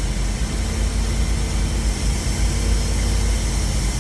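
1965 Clark Cortez motorhome's Dodge V8 engine running steadily with a deep, even rumble.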